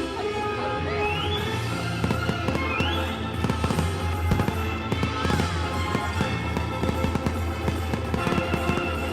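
Fireworks banging and crackling in quick succession over loud Halloween-themed display music, with two rising whistles in the first few seconds.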